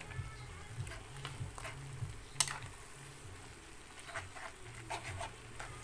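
A metal spoon stirring instant noodles and cabbage in a metal wok, with scattered scrapes and clinks against the pan.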